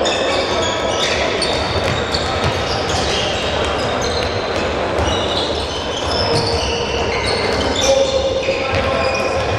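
Handballs bouncing on an indoor sports hall floor while many players run across the court, shoes squeaking over and over, with the echo of a large hall and indistinct voices in the background.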